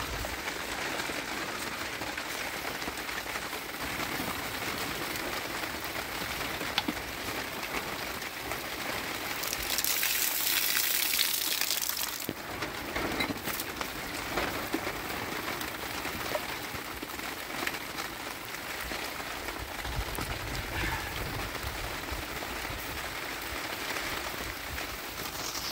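Heavy rain falling steadily, getting louder for about two seconds near the middle, with a few sharp clicks and a low rumble near the end.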